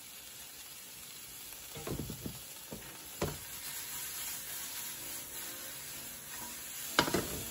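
Sliced mushrooms and halved cherry tomatoes sizzling in oil in a frying pan, with a few knocks as the pan is shaken to toss them.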